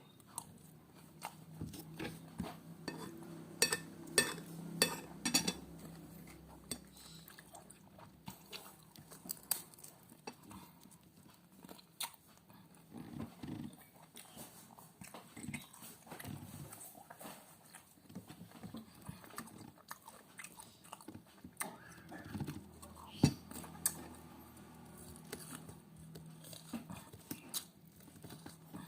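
Close-miked mukbang eating: a person chewing and biting with crunching and wet mouth sounds, and many sharp clicks that are densest about four to five seconds in and again a little past twenty seconds.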